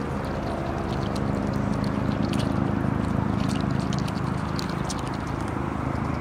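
An engine running steadily, with scattered light clicks over it.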